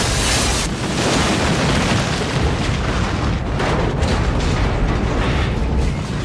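Sci-fi sound effect of the starship Enterprise-D crashing: a continuous loud rumble with crashing, explosive noise that swells and eases, loudest just at the start.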